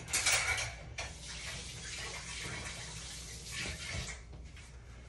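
Water running from a kitchen tap, a steady rush that is loudest in the first second.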